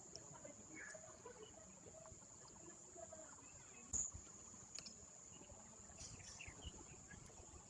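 Faint outdoor ambience: a steady high-pitched whine like insects, distant murmuring voices, and one sharp click about four seconds in.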